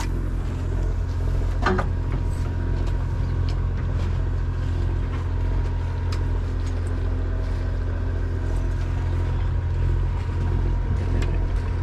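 Party boat's engine running steadily, a low drone, with a short click about two seconds in.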